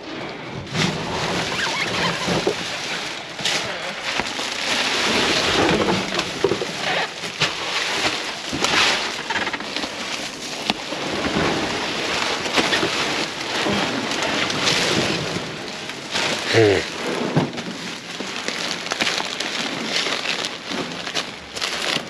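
Black plastic garbage bags rustling and crinkling as they are rummaged through and pulled open, with occasional sharper clicks and knocks from items shifting among them.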